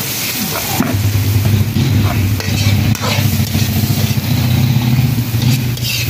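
Chopped garlic sizzling in hot oil in a wok, with a metal ladle scraping the wok as it is stirred. From about a second in, a steady low motor drone runs underneath.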